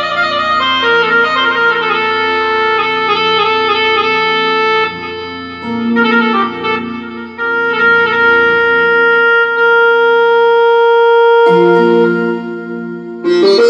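Roland XPS-10 keyboard played live: a sustained lead voice carries a slow melody over steady held low notes. It holds long notes in the middle, and the sound changes about two seconds before the end as a new phrase begins.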